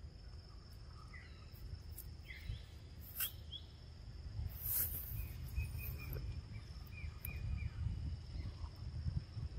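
Outdoor natural ambience: a steady high-pitched insect drone, scattered short bird chirps and calls, and a low rumbling background noise. A couple of short crackling sounds come about three and five seconds in.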